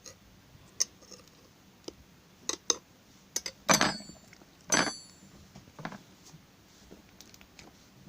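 Butter slime being pressed and spread by hand: scattered sticky clicks, with two louder wet squelches about four and five seconds in.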